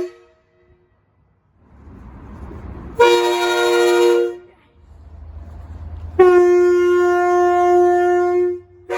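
Train horns on railway driving van trailers (DVTs), sounded in two loud blasts: a short one about three seconds in and a longer, held one a few seconds later. A low train rumble runs beneath the second blast.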